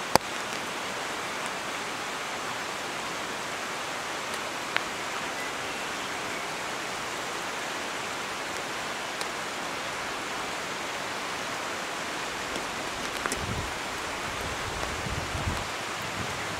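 Steady rushing of a swollen mountain river running high and swift, well above its usual size. A sharp click comes right at the start, and low rumbling thuds come near the end.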